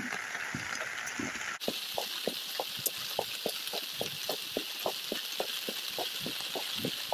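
Heavy rain, with drops tapping irregularly on an umbrella several times a second over a steady rush of floodwater in the arroyo. The taps grow frequent after an abrupt change in the sound about a second and a half in.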